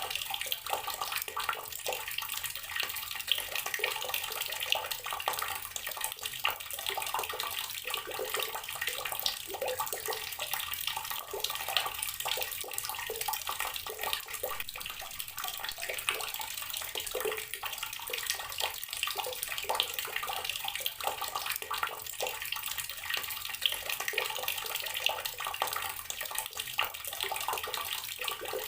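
Tap water pouring steadily into a container already holding water, a continuous splashing and gurgling stream.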